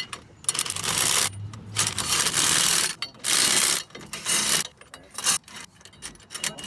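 Socket ratchet clicking in several strokes of about a second each, tightening the U-bolt nuts that clamp the rear leaf spring pack to the axle, with a few short clicks near the end.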